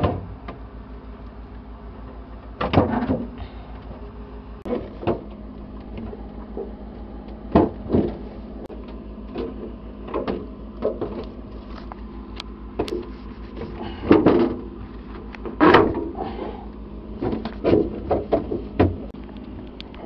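Plastic refrigerator interior panels being handled and pushed into place: irregular knocks, clicks and light rattles over a steady low hum.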